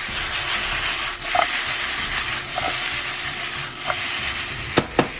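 Sliced onion and bell peppers sizzling as they fry in a pan, a steady hiss with a few light knocks and two sharp clicks near the end.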